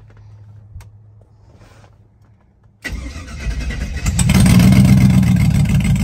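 LS V8 cranked on the starter about three seconds in and catching, then running near idle. It sounds like a four-cylinder because its injectors were left unplugged, so it is firing on only some of its cylinders.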